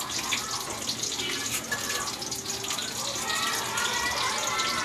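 Hot cooking oil sizzling steadily in a wok as lumpia spring rolls deep-fry, an even hiss.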